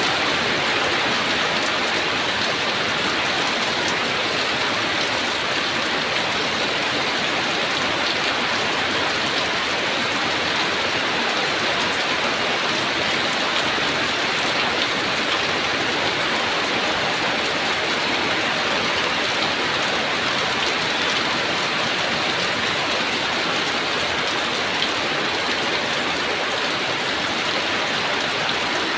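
Heavy rain falling steadily, a dense even hiss of drops on surfaces.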